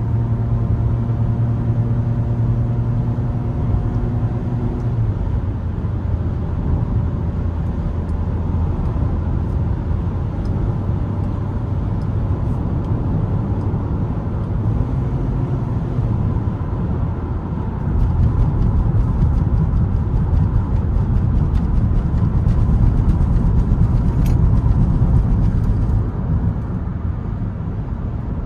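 In-cabin sound of a 2023 Mitsubishi Xpander at highway speed. Its four-cylinder engine hums steadily for the first few seconds, then fades under a low road and tyre rumble. The rumble grows louder about two-thirds of the way through and eases near the end.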